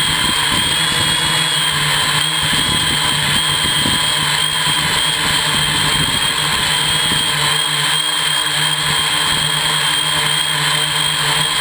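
Hexacopter's brushless electric motors and propellers running steadily in flight, heard from on board the frame: a high, slightly wavering whine over a low hum.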